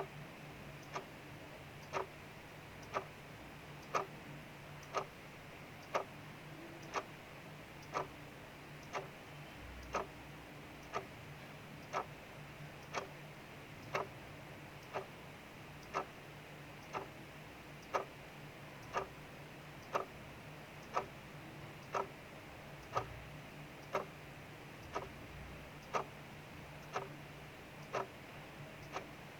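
Clock ticking steadily, one sharp tick a second, over a faint, even hiss of rain falling outside.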